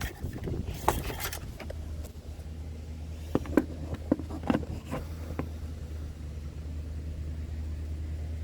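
Light clicks and knocks of an engine-oil dipstick being handled and pushed back into its tube. A steady low hum starts abruptly about one and a half seconds in.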